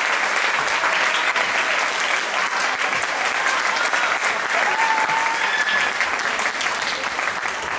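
Theatre audience applauding steadily, with a few voices calling out over the clapping.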